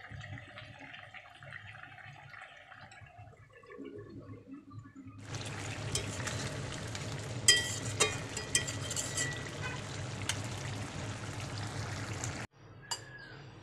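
Curry bubbling as it simmers in an aluminium pan. About five seconds in, a louder, hissing bubbling starts, broken by a few sharp clicks, and it cuts off suddenly near the end.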